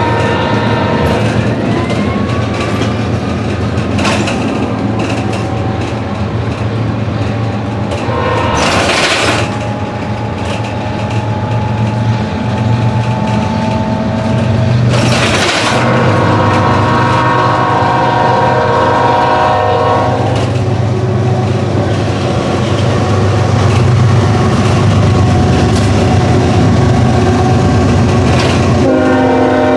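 Heard from inside a moving city bus running alongside a CN diesel-hauled intermodal freight train: a steady low engine rumble underneath, while the locomotive's air horn sounds several times, longest about 16 to 20 seconds in and again near the end. Two brief loud hisses cut in about 9 and 15 seconds in.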